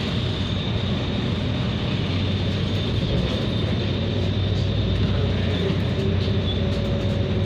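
A bus's engine and drive noise heard from inside the passenger cabin while it is under way: a steady low rumble with a thin high whine on top.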